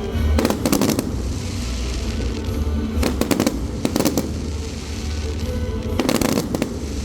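Fireworks going off in quick clusters of sharp bangs and crackles, about four volleys, over music playing in the background.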